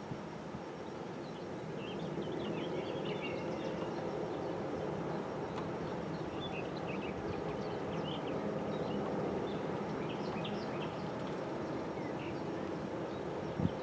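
Steady low drone of a large container ship passing close by, with small birds chirping on and off over it.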